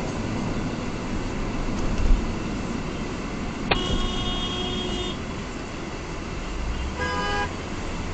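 Steady road and engine noise inside a moving car's cabin, with a low thump about two seconds in. A car horn sounds for about a second and a half a few seconds in, and a shorter honk at a different pitch comes near the end.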